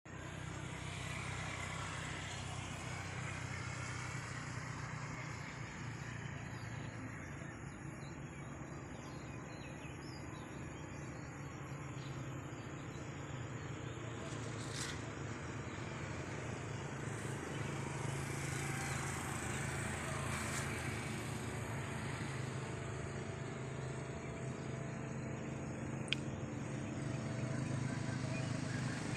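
Steady outdoor background noise with a low rumble underneath, and a single sharp click near the end.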